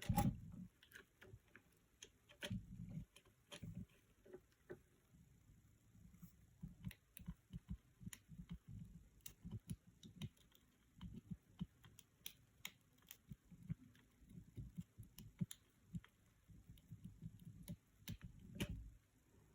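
Faint, irregular clicking and tapping, with soft low knocks, from small tools handled on a phone during a screen repair.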